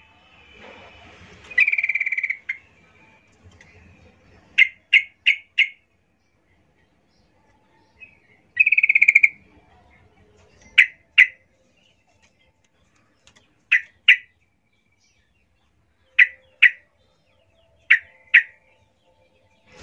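Female yellow-vented bulbul calling to attract a male: sharp, separate chirps with pauses between them. There are two longer, buzzier notes, one at about 2 seconds and one about 9 seconds in, a quick run of four chirps about 5 seconds in, and then pairs of chirps every two to three seconds.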